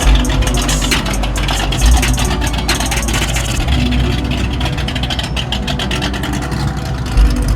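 A car engine running, over a heavy, deep low rumble with a few stronger thumps.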